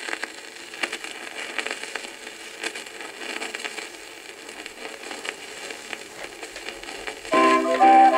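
Stylus running in the lead-in groove of a red sonosheet flexi-disc on a turntable: steady surface hiss with frequent crackles and pops. About seven seconds in, the record's music starts.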